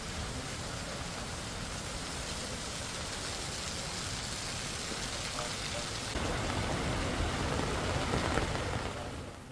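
Heavy rain falling steadily on a paved street, a little louder from about six seconds in.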